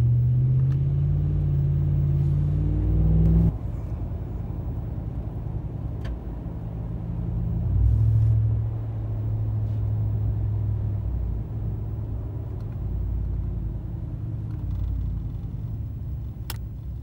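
Ram 1500's 5.7 L Hemi V8 exhaust through Carven Competitor mufflers, rising in pitch under acceleration for about three and a half seconds, then falling away suddenly to a lower, steady note. It swells briefly again about eight seconds in, then settles to steady cruising.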